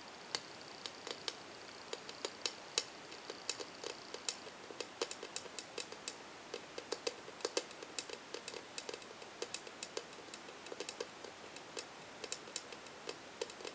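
Long fingernails tapping and clicking on the lid of a wooden-framed insect display box, in irregular quick taps, several a second and sometimes in little runs.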